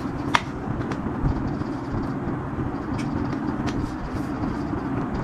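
Metal tent frame poles being handled and fitted together, giving a few light clicks and knocks, twice near the start and twice a little past the middle, over a steady low rumble in the background.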